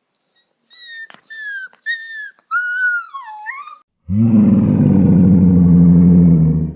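A dog whimpering in a series of short, high-pitched whines, the last one dipping and rising. About four seconds in, a much louder, low, drawn-out animal call follows and holds steady for nearly three seconds.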